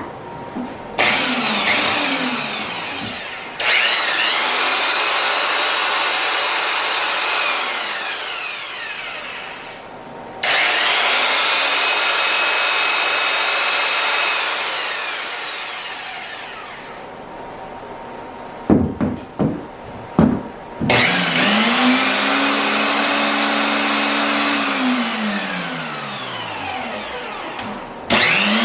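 A Milwaukee Hole Hawg right-angle drill's brushed electric motor test-run on freshly installed brushes: several runs that each wind up to speed with a rising whine, run steadily, and coast down with a falling pitch when the trigger is let go, with a few quick trigger blips between runs.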